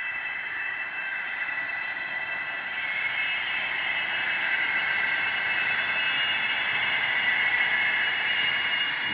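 Synthesized drone sound effect for an animated logo: a hissing wash with several steady high tones, slowly swelling louder.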